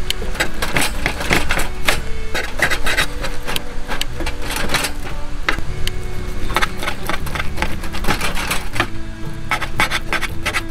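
Metal turner of a WAQ multi cooking tool cutting through steak against a griddle plate: many quick metal-on-metal clicks and scrapes, with background music under them.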